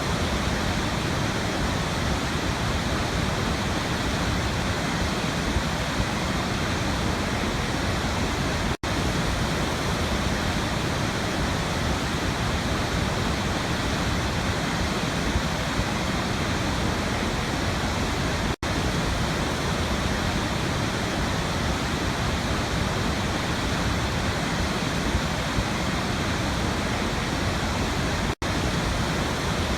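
Waterfall rushing steadily, an even wash of falling water. It breaks off for a split second three times, about every ten seconds.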